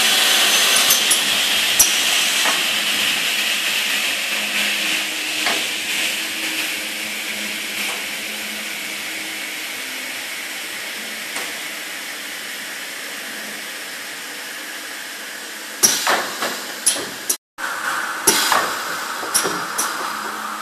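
Running noise of an aluminium-profile saw and machining line: a steady whirring hiss that slowly fades over about fifteen seconds. Near the end come a series of sharp clicks and clacks from the pneumatic clamps and gripper.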